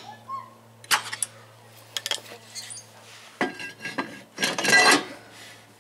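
New cast-iron rear brake drum clanking and scraping as it is pushed over the hub and the brake shoes to test its fit, ringing metallically, with a few light metal clicks first from a screwdriver on the star-wheel adjuster.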